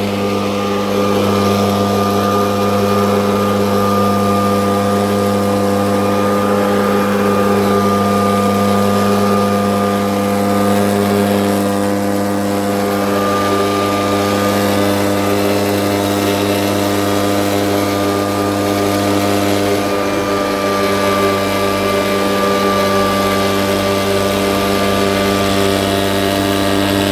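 Engine-powered blower running at a steady, unchanging speed while blowing snow clear.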